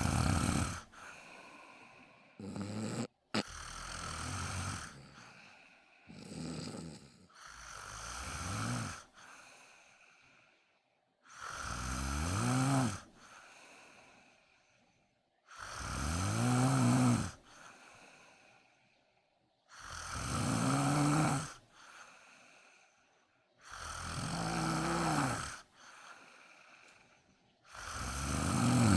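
A sleeping person snoring loudly, one snore about every four seconds. The snores are shorter and uneven at first, then settle into a regular rhythm, each rising and falling in pitch, with quieter breaths between.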